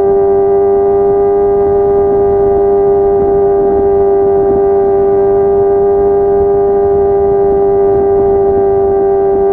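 Kawasaki ZX-25R's 250 cc inline-four engine running through a Yoshimura R55 slip-on exhaust, holding a steady high rpm. It makes one constant high exhaust note with no change in revs.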